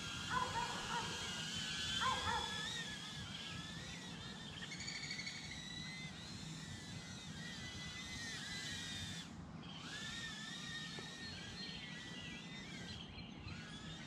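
Eachine E013 Plus micro quadcopter's brushed motors whining in flight, several high tones wavering up and down together as it is steered. Two short chirps sound within the first couple of seconds.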